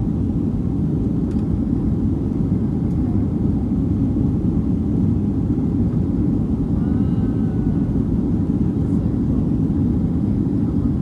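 Steady cabin rumble of a Boeing 737-900ER in flight: engine and airflow noise heard from a window seat, low and even in level.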